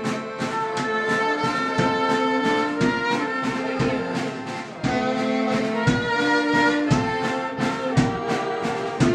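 Small folk band playing a tune on saxophone and accordion, with a bass drum and cymbal beating a steady rhythm underneath.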